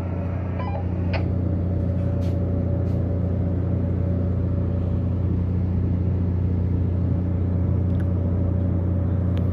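Ship's machinery running with a steady low drone and a faint steady whine above it, with a few faint clicks.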